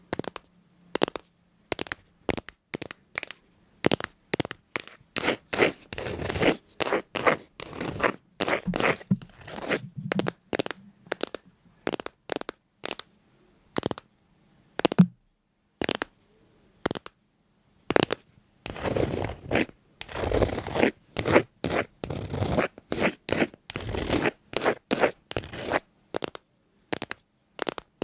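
A run of short scratching and crunching strokes, close and irregular, pausing for a few seconds about halfway through.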